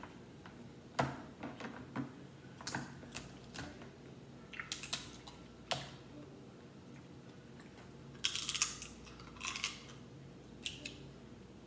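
Cooked crab-leg shells being cracked and snapped apart by hand: irregular sharp cracks, with quick crackling clusters about five seconds in and again near the end.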